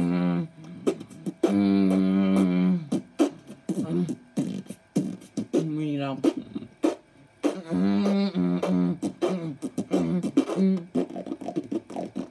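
A boy beatboxing: rapid sharp mouth clicks and percussive hits mixed with long held vocal notes.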